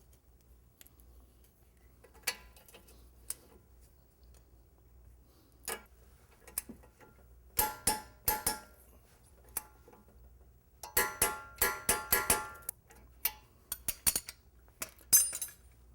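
Socket wrench and hand tools working on the strut bolts: scattered clicks and ringing metallic clinks, in groups about eight seconds in and from about eleven to thirteen seconds in.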